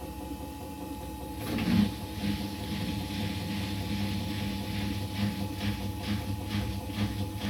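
Samsung WF702U2BBWQ front-loading washing machine running with a faint steady whine and a regular thump about twice a second as the drum turns, with one louder knock near two seconds in. This is the knocking that this new machine makes on the spin cycle.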